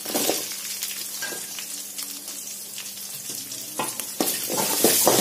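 Chopped shallots tipped into hot oil and ginger-garlic paste in a kadai, sizzling as they hit. About four seconds in, a perforated metal ladle starts stirring and scraping them against the pan with sharp clicks, and the sizzling grows louder.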